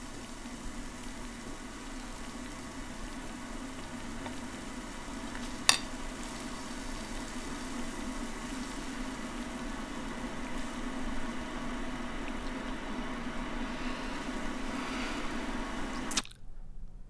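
A steady hiss over a low hum, with one sharp click about six seconds in; the sound cuts off suddenly near the end.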